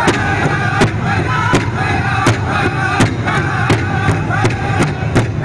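Powwow drum group: several men singing together over one large shared powwow drum, struck in unison with drumsticks in a steady beat of nearly three strikes a second.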